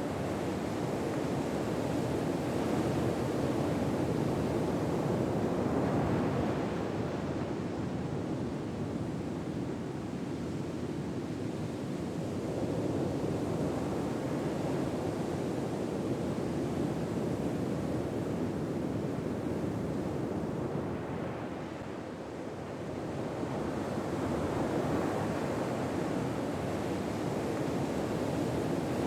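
Ocean surf ambience: a steady wash of waves that swells and eases slowly, with a few broad swells spread over several seconds each.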